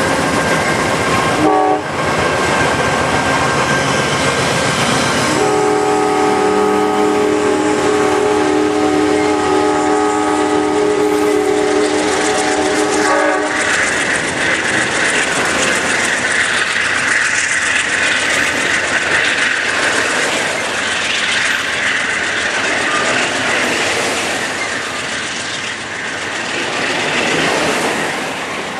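Amtrak Empire Builder passenger train passing close at speed: the locomotive's horn sounds a steady chord until about halfway, over the rumble and clatter of the bi-level Superliner cars rolling by. After the horn stops the passing cars carry on, with a high ringing hiss from the wheels and rails.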